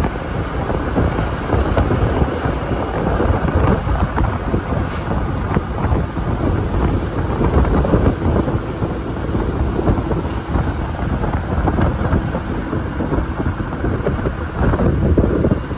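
Wind rushing and buffeting against the microphone of a moving car, over steady road noise.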